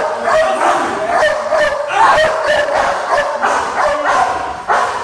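Trained police dog barking rapidly and repeatedly, about three barks a second, with the barks ringing in the room.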